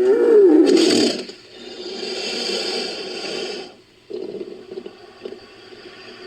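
Designed creature sound effect for a fictional giant crab, made from processed wild boar and crocodilian recordings: a growling call with a wavering pitch that ends about a second in, then a hissing scrape for about two seconds, then a quieter rattling scrape.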